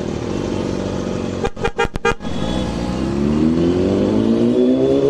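Motorcycle engine running under way, its sound cutting out several times in quick succession about a second and a half in, then rising steadily in pitch through the second half as the bike accelerates.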